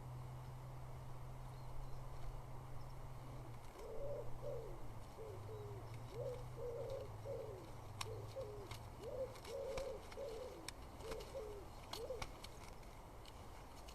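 A pigeon cooing in repeated phrases of soft, low notes, starting a few seconds in and stopping near the end. A few sharp ticks fall among the later phrases.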